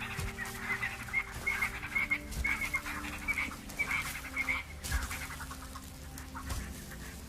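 Birds calling in a quick run of short, repeated chirps that stop about five seconds in, over a low steady drone.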